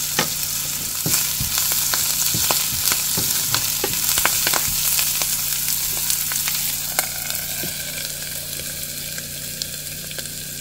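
Onion, garlic, curry leaves and mustard seeds sizzling in hot oil in a pan for a tempering, stirred with a utensil that clicks against the pan again and again. The sizzle eases somewhat about seven seconds in.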